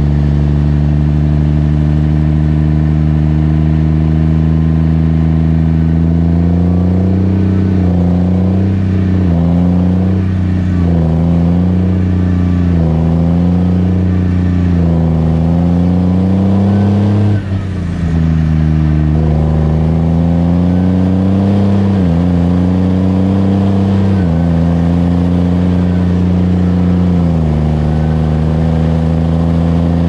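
JCB Fastrac 3230 Xtra tractor's six-cylinder diesel engine running on the move. Its pitch holds steady at first, then swings up and down repeatedly as the revs rise and fall, with a brief dip about halfway through. It then steps down in pitch a few times near the end.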